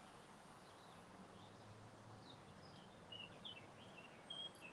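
Near silence of a quiet garden, with small birds giving short, faint, high chirps, more of them in the second half.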